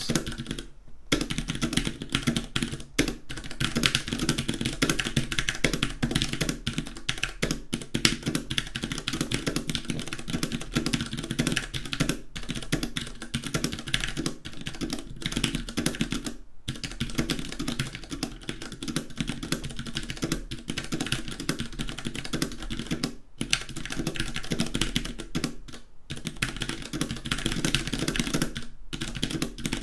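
Steady fast typing on a KBP V60 Mini 60% mechanical keyboard with Cherry MX Brown switches and ABS keycaps: a dense run of key clacks with a few brief pauses.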